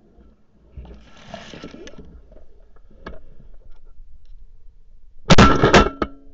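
Shotgun fired at ducks passing overhead, heard from a camera mounted on the gun: a very loud burst of sharp blasts and clatter a little over five seconds in, then a short metallic ringing. Before it there is only faint handling noise and a single click about three seconds in.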